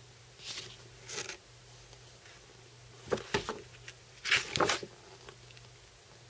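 Rustling and handling of model-kit packaging and parts in a few short bursts, the loudest about halfway through and again a little later, over a faint steady hum.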